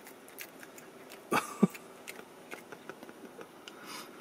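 A cat chewing a piece of fried swimming crab, with small crisp crunching clicks scattered throughout. A brief loud burst stands out about a second and a half in.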